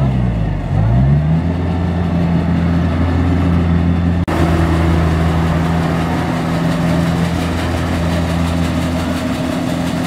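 Diesel engine of a Kubota tracked rice combine harvester running under way. Its pitch drops and then climbs back up about a second in, then holds a steady note, with a short break a little over four seconds in.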